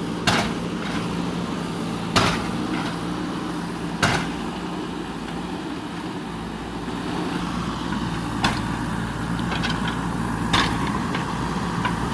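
JCB 3DX backhoe loader's diesel engine running steadily, with sharp knocks about every two seconds at first and again twice near the end. The engine grows a little louder and heavier about halfway through.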